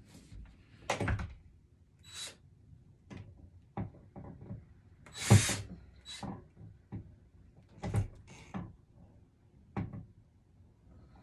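Scattered knocks and clatters of a metal over-the-door hook rack against a wooden door as it is worked loose, with one louder rattle about five seconds in.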